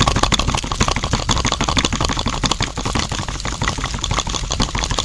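Small electric motor of a miniature concrete mixer running steadily, turning the drum of wet concrete, with a fast, even clatter of clicks from its small gearing.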